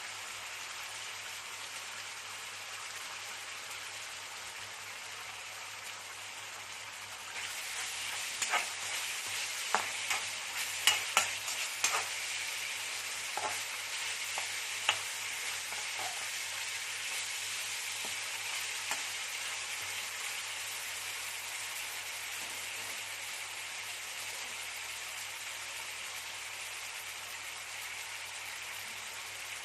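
Food stir-frying in a hot pan: a steady sizzle that gets louder about seven seconds in. Between roughly 8 and 15 seconds a utensil knocks sharply against the pan a number of times.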